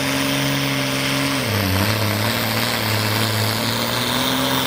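Oliver pulling tractor's engine running hard as it launches into a pull against the sled. Its note dips about a second and a half in as the load comes on, then holds steady, with a high whine rising near the end.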